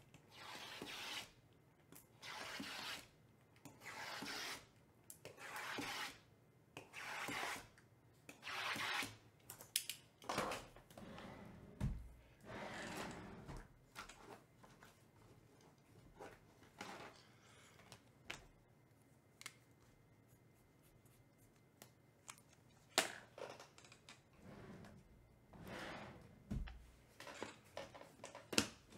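A small blade slicing the plastic shrink-wrap on sealed trading-card boxes: a run of short cutting strokes, about one every second and a half for the first ten seconds, then scattered scrapes, rustles and taps as the boxes are handled.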